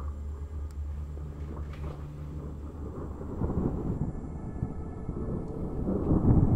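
Rolling thunder rumbling, growing louder from about halfway through and loudest near the end, over a low steady drone in the first half.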